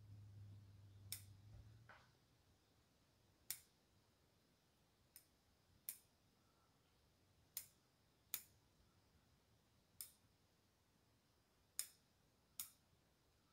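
Bonsai scissors snipping leafy shoots off a bald cypress: nine sharp, single clicks at irregular intervals of about one to two seconds, against near silence.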